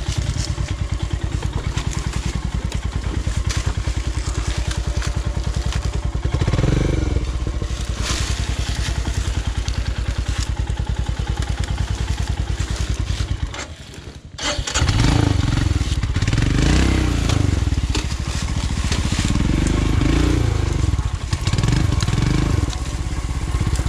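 Royal Enfield Himalayan's 411 cc single-cylinder engine thudding at low revs as the bike labours through a steep, rough trail section. About halfway through it cuts out for about a second, then runs again, revving up and down repeatedly.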